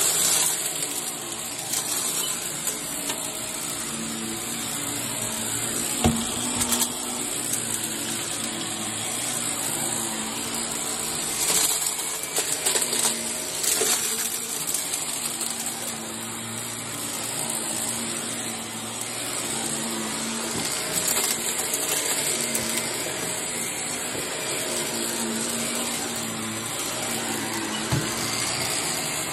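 Upright vacuum cleaner running steadily on hallway carpet as it is pushed back and forth, a motor hum under a high whine. A few sharp clicks, the loudest about six seconds in.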